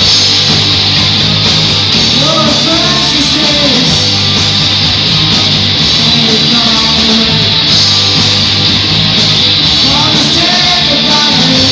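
Rock band playing live and loud: electric guitars, bass guitar and drum kit.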